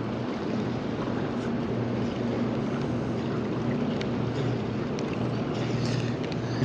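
Steady wind and water noise with a low steady hum underneath, and a few faint clicks.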